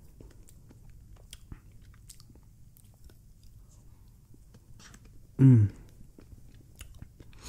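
Close-up mouth sounds of eating a spoonful of vanilla Frosty: faint wet smacks and small mouth clicks. About five and a half seconds in comes one short, loud voiced 'mm'.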